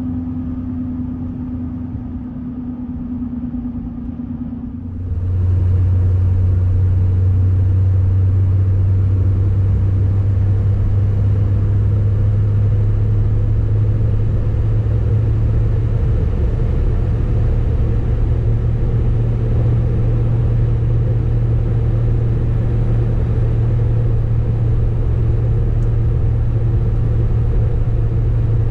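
Duramax 6.6 L V8 turbodiesel pickup on the move: a steady low drone and rumble that steps up suddenly and gets louder about five seconds in, then holds steady.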